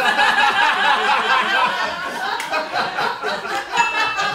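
Men laughing out loud at a joke, a sustained run of chuckling laughter.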